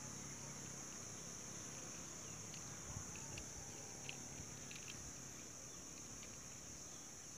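Faint, steady, high-pitched insect drone, with two faint soft clicks about three and four seconds in.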